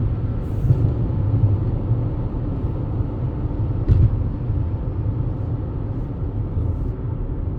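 Steady low road rumble of a car driving, heard from inside the cabin, with one brief bump about four seconds in.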